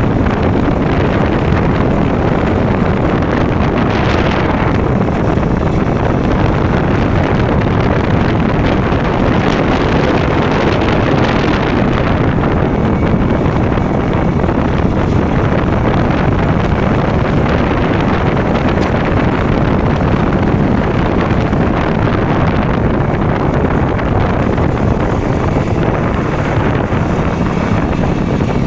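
KTM Duke motorcycle engine running while riding along the road, with wind rushing over the microphone.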